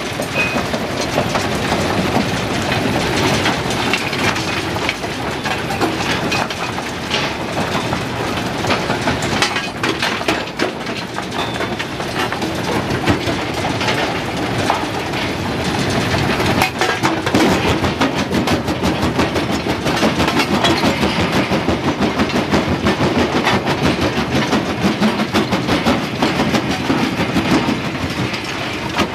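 Kue-Ken jaw crusher running and breaking rock: a steady mechanical din with a rapid, continuous clatter of rock cracking and rattling in the jaws.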